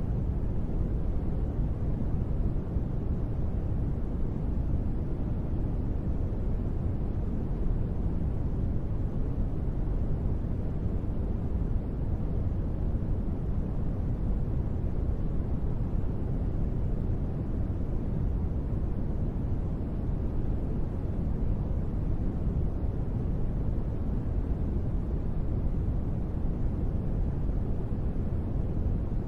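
Steady sleep noise, sold as white noise but deep and rumbling, with most of its weight in the bass and little treble, unchanging throughout.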